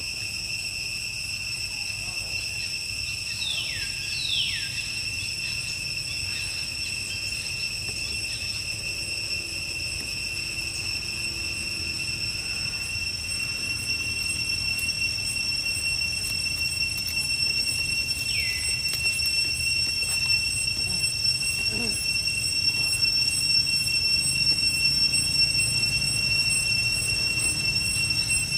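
Steady high-pitched insect drone, one unbroken tone with its overtones, over a low rumble. A few short high calls fall in pitch: two about four seconds in and one more around eighteen seconds.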